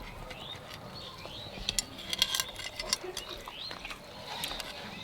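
Birds chirping, with a few sharp clicks about two seconds in.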